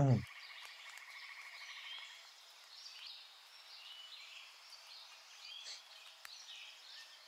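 A short loud downward-gliding swoop right at the start, then a quiet nature ambience of frogs croaking and birds chirping, with many short calls over a steady background haze.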